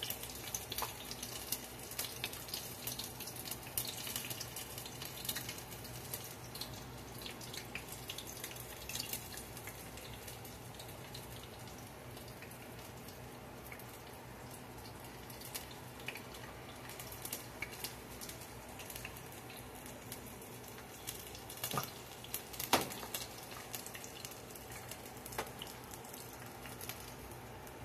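Battered onion rings deep-frying in a pot of hot oil: a steady crackle of small pops and spatters, busiest in the first several seconds as fresh rings go in, then thinning. A couple of louder knocks come near the end.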